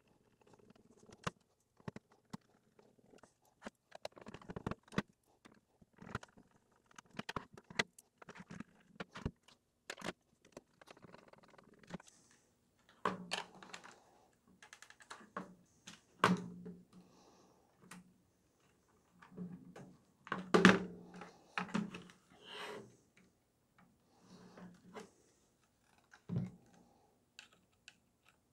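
Irregular clicks, taps and knocks of hard plastic parts being handled and screwed together with a small screwdriver: a gel ball blaster's plastic shell being reassembled. The loudest knock comes about twenty seconds in.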